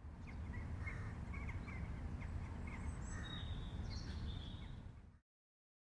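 Outdoor ambience of small birds chirping, with many short chirps and a few longer high whistled calls, over a steady low background rumble. It cuts off abruptly about five seconds in.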